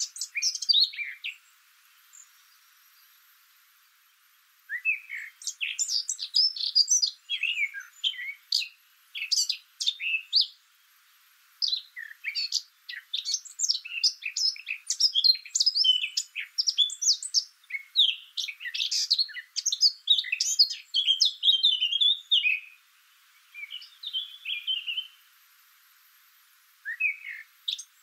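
Birds chirping in quick runs of short, high notes, with pauses of a few seconds near the start and near the end.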